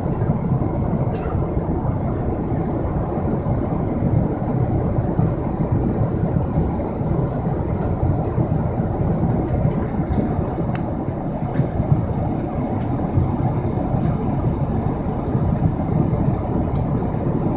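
Steady low rushing cabin noise of a Boeing 777-300ER in flight: airflow and engine noise heard from a passenger seat, with a couple of faint clicks partway through.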